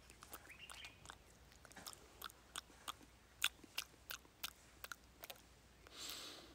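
A person chewing a brined wild olive close to the microphone: irregular crunches and clicks of teeth on the fruit, a few a second, followed by a short hissing sound near the end.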